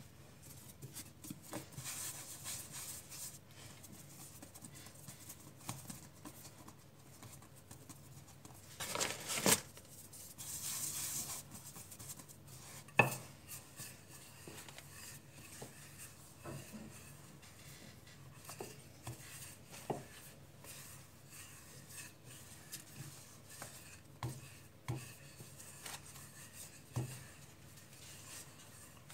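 Wooden rolling pin rolling out soft yeast dough on a stone countertop: quiet rubbing and pressing with scattered light knocks of the pin and hands on the counter, the sharpest about halfway through, and a brief louder rustle just before it.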